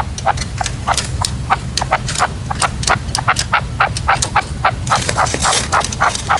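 Red-legged partridges calling: many short, sharp calls, several a second, crowding into a dense run about five seconds in. A steady low hum runs underneath.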